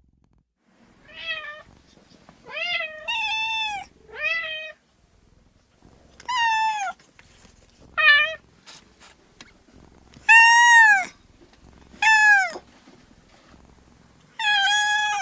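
A female domestic cat meowing over and over, about eight meows, each under a second long with the pitch rising and then falling, spaced one to two seconds apart.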